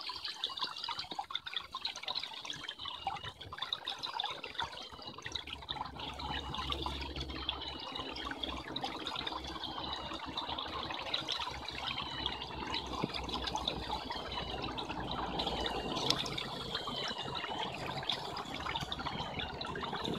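Shallow water trickling and splashing as the feet of a motorized LEGO AT-AT (set 10178) wade through it. A high, wavering whine rises and falls in a repeating pattern throughout, and a low steady hum joins about five seconds in.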